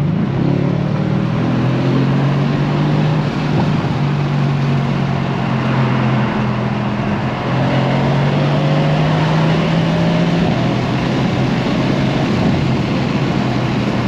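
Mercedes-AMG C63 S Coupé's 4.0-litre twin-turbo V8 (M177) running steadily under way, its note slowly climbing as the car picks up speed to about 80 km/h.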